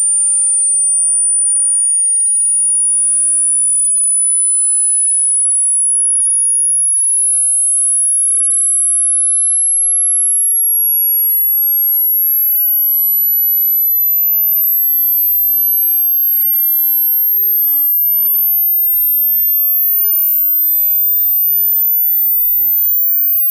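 Hearing-test tone: a single pure, very high-pitched electronic tone that climbs in small steps about every second and a half, sweeping up toward the top of the range of human hearing to find where the listener stops hearing it.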